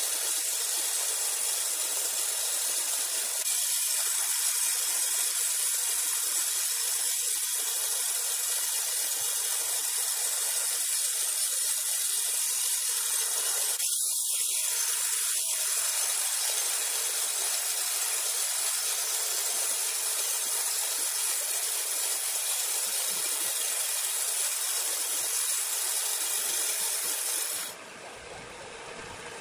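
Band sawmill blade cutting lengthwise through a large green ironwood log, making a steady high hiss. Near the end the cutting noise cuts off suddenly as the blade clears the log, leaving a quieter, lower machine sound.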